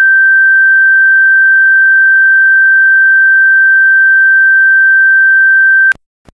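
A loud, steady electronic tone at one high pitch holds unchanged for about six seconds, then cuts off suddenly near the end, followed by a faint click.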